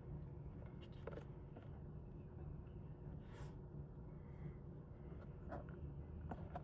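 Faint clicks and scraping of plastic being handled and worked at while opening a CPAP machine's housing, over a low steady room hum.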